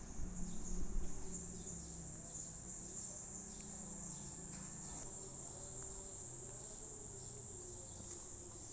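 Insects trilling steadily at a high pitch, with a low hum fading away over the first second and a half.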